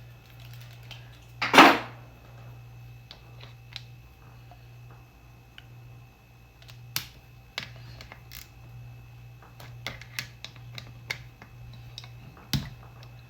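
Hand tools clicking and knocking on a carburetor as a 5/16 wrench works loose the float bowl screws, one loud knock about a second and a half in, then scattered light irregular clicks. A steady low hum runs underneath.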